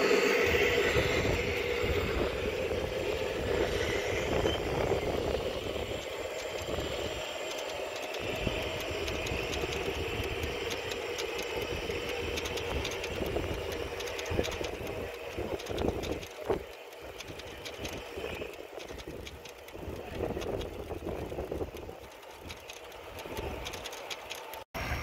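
G scale model freight train of hopper cars rolling past: wheels clicking and rattling over the track, with the diesel locomotive's engine sound fading away in the first few seconds. The sound slowly gets quieter as the train moves off.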